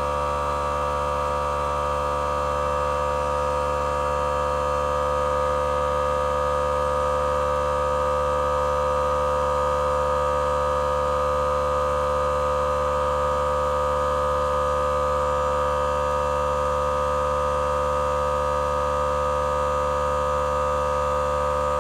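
Small electric air blower (electric duster) running steadily, a high constant whine from its motor and fan over a low hum.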